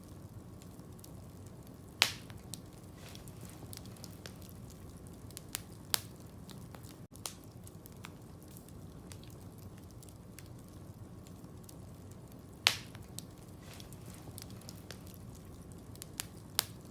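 Campfire crackling: scattered small ticks over a low steady rumble, with four sharp loud pops about two seconds in, around six seconds, around thirteen seconds and near the end.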